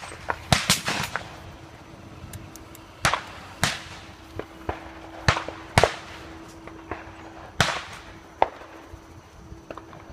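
Shotgun shots at a clay-target range: a series of sharp reports, several coming in pairs about half a second apart, some loud and close, others fainter and farther off.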